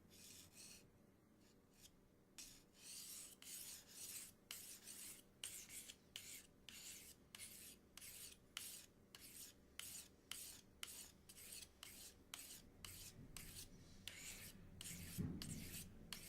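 Ceramic knife edge drawn over a diamond sharpening file, a faint scraping hiss in quick, even strokes, about two a second, starting about two seconds in. The diamond is grinding away ceramic to restore the dulled edge.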